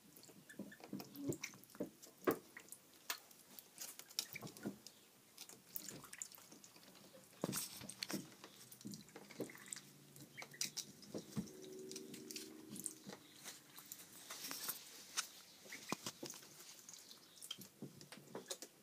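Ducklings drinking and dabbling at a plastic water cup and pecking at feed: quick, irregular clicks and taps of their bills with small drips and splashes of water.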